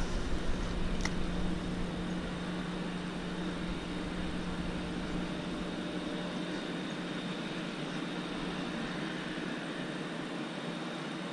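Steady low mechanical hum holding one constant tone. About a second in, a short swish and a sharp click as a spinning rod is cast and the reel's bail snaps shut.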